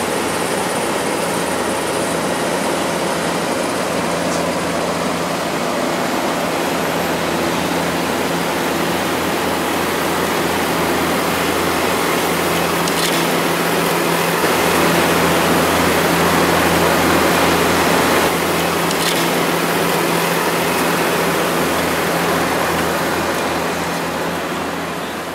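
Diesel engines of asphalt-paving machinery (paver, road roller and dump truck) running steadily at work, with a constant low engine hum; the sound fades out near the end.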